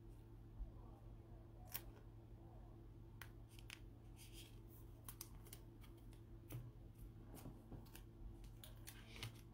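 Faint scattered clicks and plastic rustles of trading cards being slid into plastic sleeves and top loaders, over a steady low hum.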